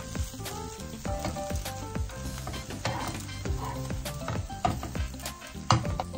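Quesadillas sizzling in a nonstick frying pan while a metal slotted spatula and tongs tap and scrape against the pan, turning them, with a sharp clack near the end.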